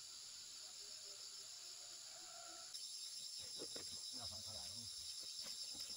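Insects chirring steadily at a high pitch. About three seconds in, the chirr changes to a fast pulsing one, and low, irregular sounds of footsteps and rustling on a dirt path join in.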